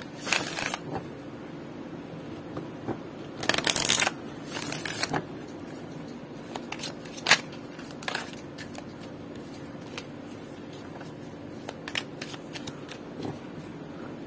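A deck of oracle cards shuffled by hand. There are short rustling bursts near the start and two louder runs around four to five seconds in, then sparser light card clicks and flicks.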